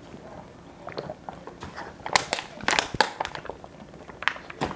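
Plastic water bottle crinkling and clicking as it is handled and drunk from. There is a cluster of sharp crackles about two to three seconds in and a few more near the end.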